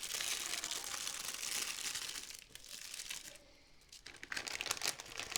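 Packaging being crinkled and handled while the kit is unwrapped: a long bout of crackling, a short pause, then a second bout about four seconds in.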